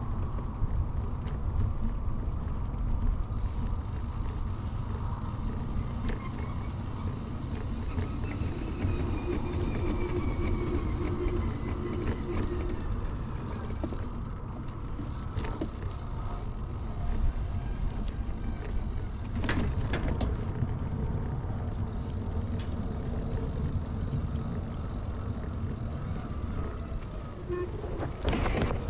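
Steady road and tyre rumble from an early-1970s Peugeot UJ-10 ten-speed bicycle being ridden, with a couple of sharp rattles, one about two-thirds through and one near the end.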